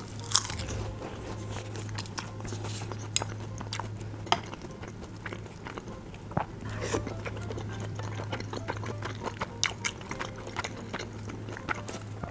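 Close-miked eating sounds: biting into and chewing a dumpling, with wet mouth smacks and small sharp clicks scattered throughout. A steady low hum runs underneath.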